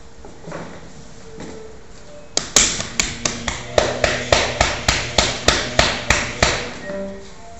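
A rapid, even series of sharp hammer-like knocks, about three a second, starting about two and a half seconds in and stopping near the end, over a low steady hum.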